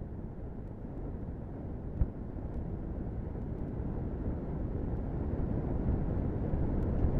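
Low rumble of a Rocket Lab Electron's nine Rutherford first-stage engines in flight, seconds before main engine cutoff. It grows gradually louder, with one short knock about two seconds in.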